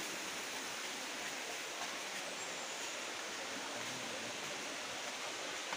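Steady, even rush of falling water from a waterfall and its stream.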